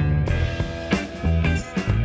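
Background instrumental rock music with a bass line, guitar and a steady drum beat.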